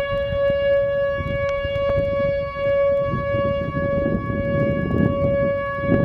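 Whelen 3000-series electronic outdoor warning siren sounding a steady tone, holding one pitch throughout.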